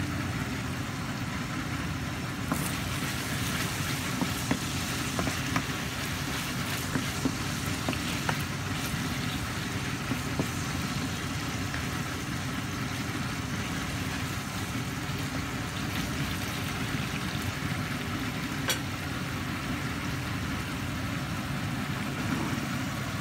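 Chicken liver and onions sizzling in oil and sauce in a frying pan, a steady frying hiss with scattered small pops. Partway through, a spatula stirs the pan.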